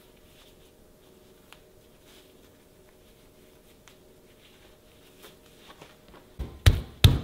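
A few seconds of faint rustling and small clicks, then near the end a run of heavy, evenly paced thuds, about three a second, as food is pounded against a hard surface.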